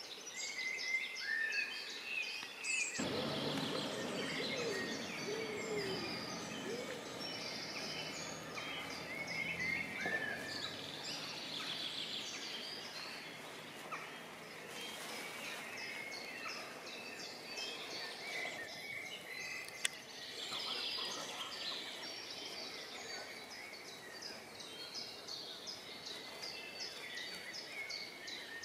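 Songbirds singing and calling, many short chirps and trills at several pitches, over a steady outdoor background hiss. From about three seconds in a fuller, lower rushing noise joins and fades away by about ten seconds.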